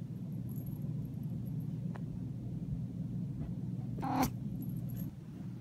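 Steady low hum of a quiet room, broken about four seconds in by one brief noise up close as a cat comes right up against the camera.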